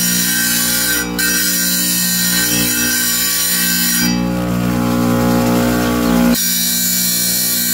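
Wet tile saw running steadily, its motor humming evenly as the blade spins. From about four seconds in the sound turns harsher and a little louder for two seconds, then drops back abruptly to the plain running hum.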